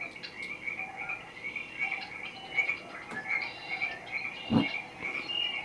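Nature soundtrack of a cat-entertainment DVD played through a TV: a frog croaking in a steady rhythm, about three calls a second, with higher chirps over it. A brief falling sound cuts in about four and a half seconds in.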